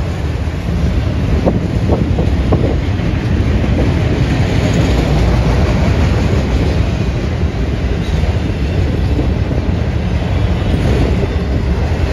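A train rolling past, its wheels clacking over the rail joints in a steady heavy rumble, with a few sharper clacks about two seconds in.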